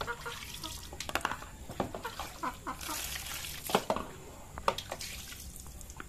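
Water splashing and dripping as salted fish are rinsed and rubbed by hand on a plastic plate, with scattered sharp taps and clicks of the fish and knife against the plate.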